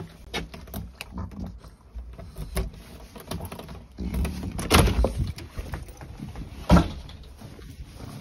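A key being worked in the lock of a uPVC front door, with a run of small clicks and rattles, then the handle and door being opened. There is a louder rattling knock about five seconds in and a sharp knock near seven seconds, the loudest sound.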